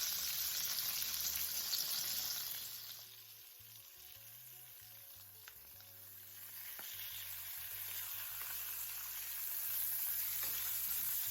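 Thin floured chicken cutlets sizzling in melted butter in a pan as they brown. The sizzle drops quieter for a few seconds in the middle, then builds back up.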